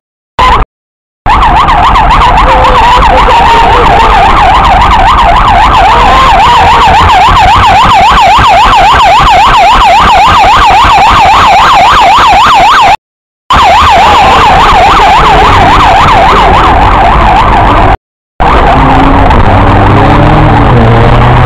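Emergency vehicle siren in a fast, loud warble, its pitch swinging rapidly up and down, cutting out briefly a few times. Near the end it fades and lower traffic noise takes over.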